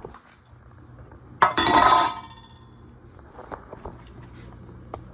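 Metal garbage-disposal mounting parts clanging together once, a short clatter with a brief metallic ring, followed by a few light clicks of handling.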